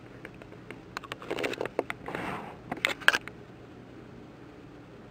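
Clicks and rustling of hands handling electrical wires at a heat-shrunk splice, clustered between about one and three seconds in, with a brief hiss about two seconds in.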